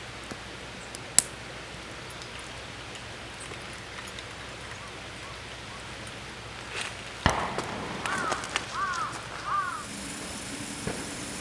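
A crow cawing three times in quick succession, just after a single loud sharp knock; a sharp high click about a second in.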